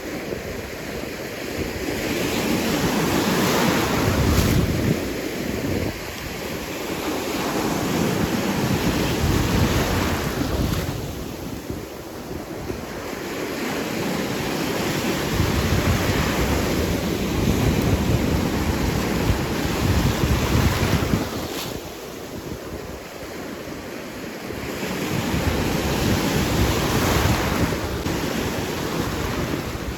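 Waves breaking and washing in on the shore, swelling and ebbing about every six seconds, with wind rumbling on the microphone.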